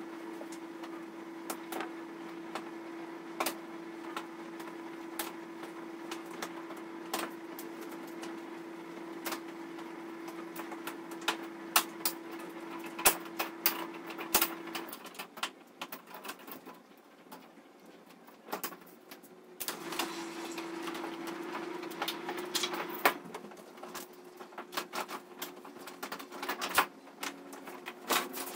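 Plastic frame clips of an LED TV's backlight assembly being pried loose by hand, making irregular clicks and snaps. Near the end the large plastic diffuser sheet flexes and rattles as it is lifted off the LED strips. A steady hum runs underneath and drops out about halfway through.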